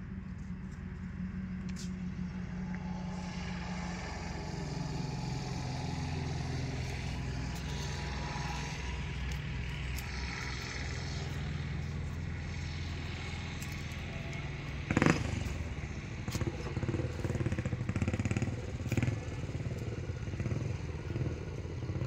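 Bull SD76 backhoe loader's diesel engine running steadily, a little louder after a few seconds as the hydraulic boom lifts. About two-thirds of the way through there is one sharp knock, the loudest sound, followed by uneven clattering.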